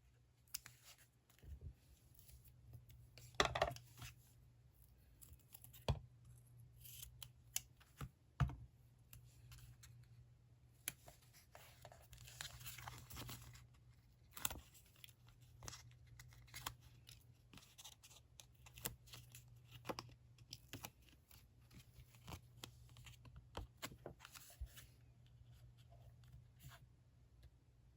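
Paper and stationery being handled at a desk during diary decorating: scattered light taps and clicks, with a longer stretch of cutting or tearing about twelve seconds in, over a faint steady low hum.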